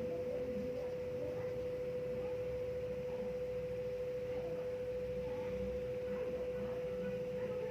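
A steady, unbroken pure tone held at one pitch, with faint indistinct sounds beneath it.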